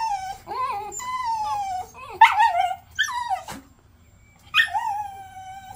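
Small dog whining in a string of about six high whines that mostly fall in pitch, with a short lull after the middle: the eager whining of a dog that wants to go chase rabbits.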